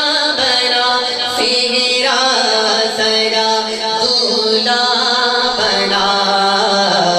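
Man singing a sehra, the wedding song for the groom, into a microphone through a PA system. He draws out long melismatic held notes in place of clear words.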